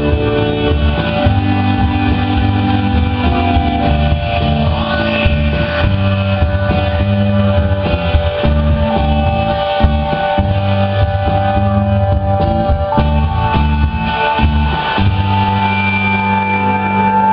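Live rock band playing an instrumental passage with no vocals: electric guitar, bass, drum kit and synthesizer. The synthesizer and bass sustain long held notes over a steady drum beat.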